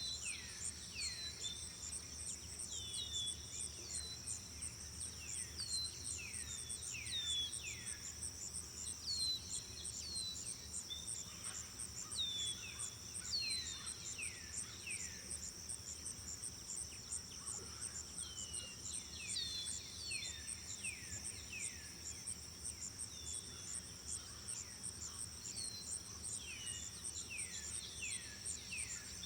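A steady, high-pitched chorus of crickets trilling with a fast pulse, over which birds give short downward-sliding chirps in small groups.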